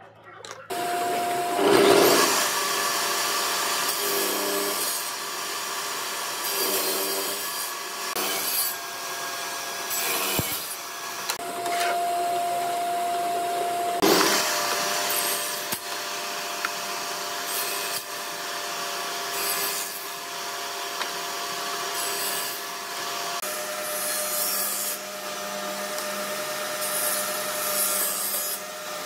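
Table saw running with a steady motor and blade hum, ripping wooden boards fed through the blade in repeated cuts. The cutting sound swells and fades as each piece passes, loudest about two seconds in and again around the middle.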